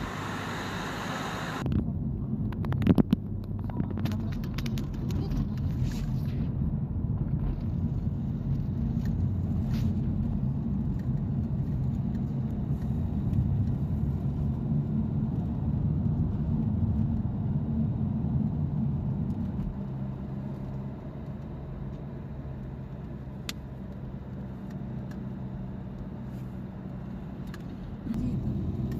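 A car running with a steady low engine and road rumble, which becomes quieter from about twenty seconds in and louder again near the end.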